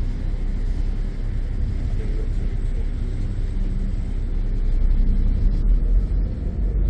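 A harbour ferry's engines running under way, a steady low drone heard from the open deck, growing a little louder about five seconds in.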